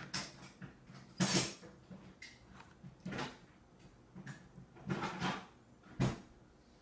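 A small spoon scraping and clinking against a stainless steel bowl in about five separate strokes, the longest and loudest a little over a second in, with a short sharp knock near the end.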